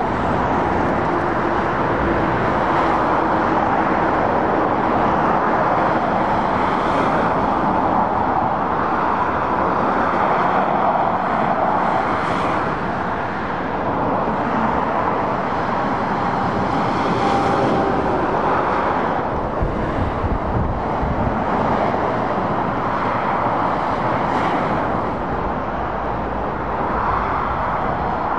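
Steady dual-carriageway traffic noise: tyre roar from cars, vans and lorries passing at speed, swelling each time a vehicle goes by, several times over.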